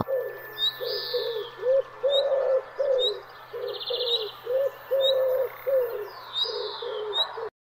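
Birdsong: a quick series of low cooing notes, about two a second, some held longer, with high chirps and a brief buzzy trill above them. It cuts off sharply near the end.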